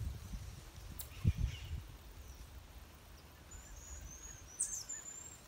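Several short, high-pitched whistled calls, some gliding up and down, in the last two seconds over faint outdoor background, with a soft knock about a second in.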